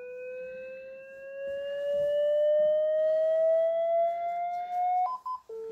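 LifePak 20 defibrillator's charging tone, one steady note rising slowly in pitch as the unit charges to 360 joules. About five seconds in it gives way to short alternating high and low beeps: the charge-complete alert that calls for the shock button to be pushed.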